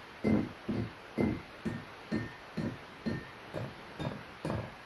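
Glass bottles holding different levels of water struck one after another with a ball-headed mallet, about two taps a second, each giving a dull knock with a faint ringing note. The notes step down in pitch through the run and are hard to hear.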